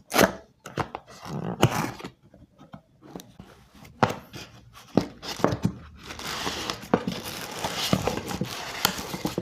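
Packaging handled while a boxed speaker is unpacked: scattered knocks and rustles, then a few seconds of continuous crinkling of wrapping from about six seconds in.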